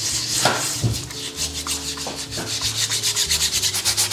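Scotch-Brite pad scrubbing a solvent-soaked engine piston by hand in quick, rhythmic back-and-forth strokes, cleaning off oil and loose carbon. There are a couple of light knocks in the first second, and the strokes grow faster and more even after that.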